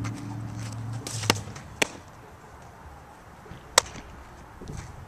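Sharp pops of a softball striking leather gloves. The first comes about a second in and a second follows half a second later. The third comes near the four-second mark, as the returned ball pops into the pitcher's glove. A low steady hum runs under the first second and a half.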